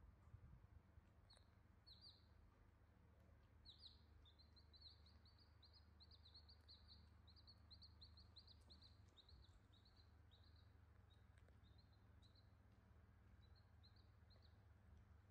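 Newborn chicks peeping faintly in short, high cheeps: a few at first, then a quick run of about four a second from about four seconds in until near the end, over a low steady hum.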